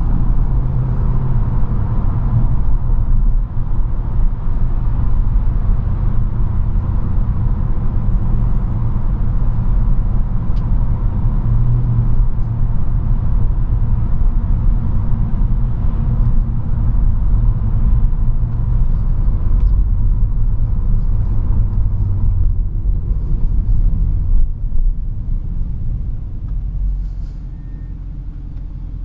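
Mercedes-Benz C63 AMG (W204) 6.2-litre V8 heard from inside the cabin while driving, a steady low rumble. Near the end the engine sound drops to a lower, quieter level as the car slows for a junction.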